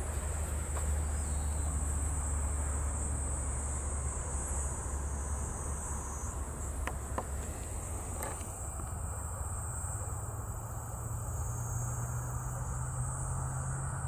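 Insects in the grass and rice paddies chirring in a steady high-pitched drone, with a low steady rumble underneath that rises a little in pitch about halfway through.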